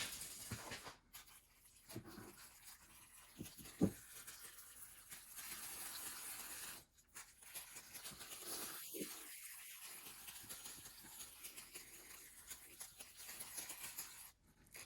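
Faint handling noises: a few soft knocks and light rubbing, with a short steady hiss about six seconds in.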